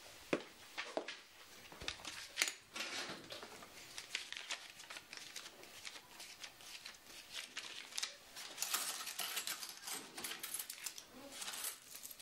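Paper banknotes being counted by hand: a run of crisp rustles and flicks of paper, with a denser stretch of rustling near the end.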